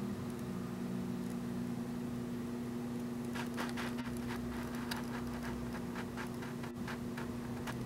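Steady low electrical hum of room tone, with faint rustling and small irregular clicks starting about three seconds in as the handheld camera is moved and handled.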